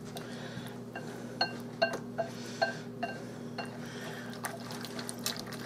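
A spoon stirring a vinaigrette, clinking against the side of the bowl with short ringing clinks about twice a second, then a few sparser clinks toward the end.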